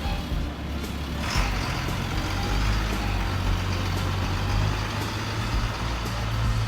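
A motor vehicle's engine running steadily with a low hum, with a short hiss about a second and a half in.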